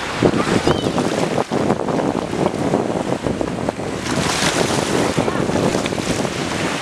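Small sea waves washing and splashing in shallow water, with wind buffeting the microphone.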